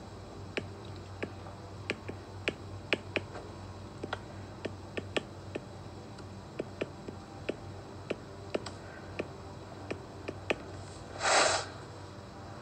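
Stylus tip tapping and clicking on an iPad's glass screen while handwriting a label: many sharp, irregular ticks, about two a second. A short hiss sounds near the end.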